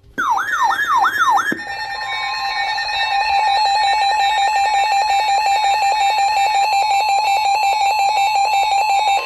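Emergency Alert System alert tones: four quick falling siren-like sweeps, then the EAS attention signal, a harsh two-tone alarm pulsing rapidly and steadily, announcing a tornado warning.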